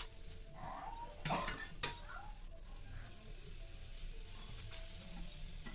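Metal spatula scraping and clinking on an iron tawa as oil is spread over a cooking paratha, with faint sizzling. There is one sharp clink just before two seconds in.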